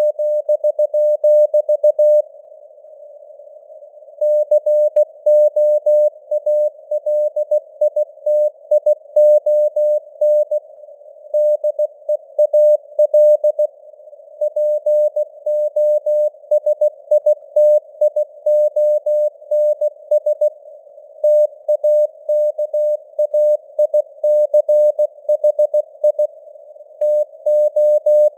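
Morse code at 16 words per minute: a single tone of about 600 Hz keyed on and off in dots and dashes, spelling out news text. It sits over a faint, narrow band of simulated radio hiss, like a CW signal heard through a receiver's filter.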